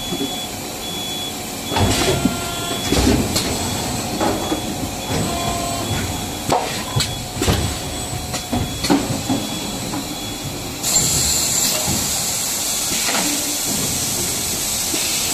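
Powerjet EB180U extrusion blow moulding machine running its cycle: a series of clacks and knocks from the moving mould and carriage over pneumatic hissing, then a steady, louder hiss of compressed air that starts suddenly about eleven seconds in.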